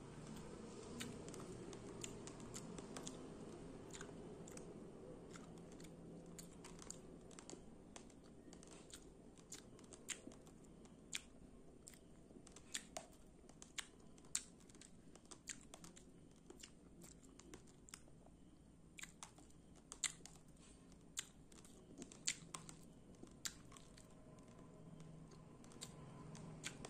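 Raw rice grains being chewed and crunched between the teeth: sharp, irregular cracks every second or so over a soft, steady chewing sound.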